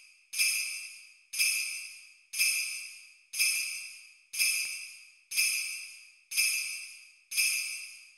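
Sleigh bells shaken in a slow, even rhythm, about once a second, each jingle ringing out and dying away before the next.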